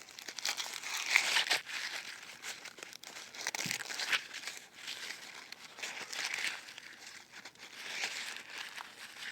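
Dry husks being peeled and torn back from an ear of Hopi blue corn: a dry crinkling rustle in repeated bursts.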